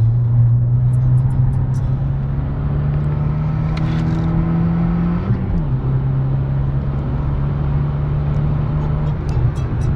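Renault Mégane R26's 2.0-litre turbo four-cylinder engine running under load on track, its note climbing steadily for about five seconds, dipping sharply, then holding steady.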